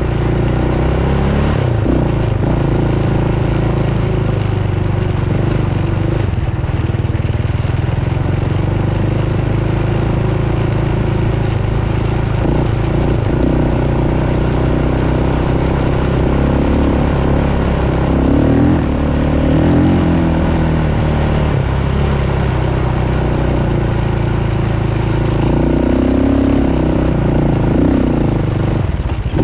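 Off-road vehicle engine running under way across sand, its pitch rising and falling with the throttle, with a couple of stronger pulls on the gas in the second half.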